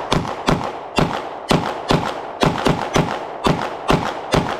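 Springfield Echelon 9mm pistol fired in a fast, steady string of about ten shots, roughly two to three a second.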